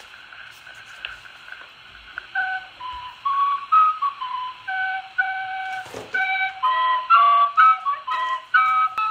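A recorder playing a simple tune in short separate notes, starting about two seconds in, over the hiss of an old home cassette tape.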